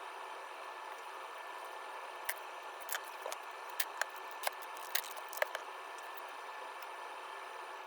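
Small metal toolbox hardware clicking and clinking against itself about nine times in the middle stretch, over a steady hiss, as the parts are handled during cleaning.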